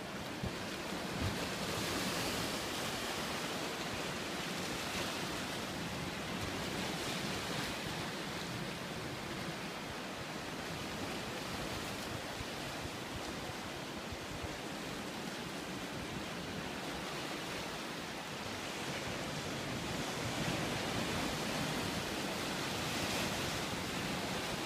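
Ocean surf breaking and washing around shoreline rocks: a steady rush of water that swells up every few seconds.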